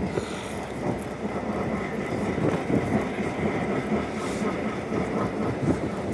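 A Canadian Pacific train, steam locomotive 2816 with F7 diesel units, rumbling close by in a steady low noise with irregular knocks.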